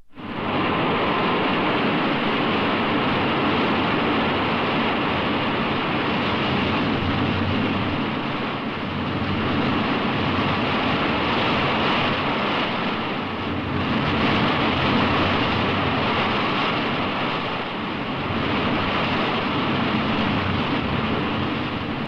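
Rodan's flying sound effect: a continuous rushing, wind-like noise that starts abruptly and swells and eases slowly in loudness every few seconds.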